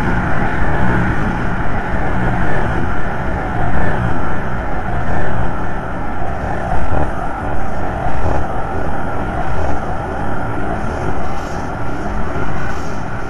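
Dense, rumbling drone of experimental noise, thick and grainy with no clear pitch or beat, its loudness surging and ebbing unevenly.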